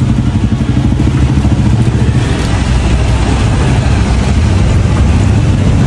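An engine running steadily with a low, evenly pulsing sound.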